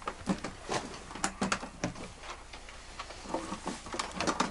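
Scattered light clicks and knocks, irregular and sharp, from music gear and cases being handled close to the microphone.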